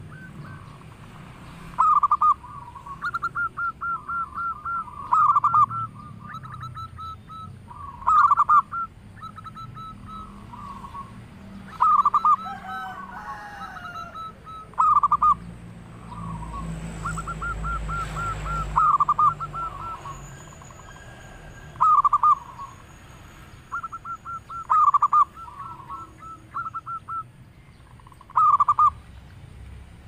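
Zebra dove (perkutut) singing its cooing song: runs of quick staccato notes and louder clusters of coos, repeated every few seconds. A low rumble swells in the background about midway.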